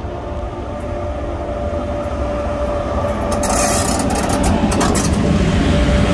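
South African Railways class 18E electric locomotive passing close by: a low rumble of wheels on the rails with a steady whine from its motors, growing louder as it draws level. A rush of hiss comes in about halfway through.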